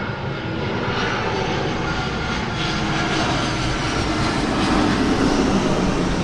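Airplane engines running loud, a dense rush of noise with faint steady whining tones, swelling a little near the end.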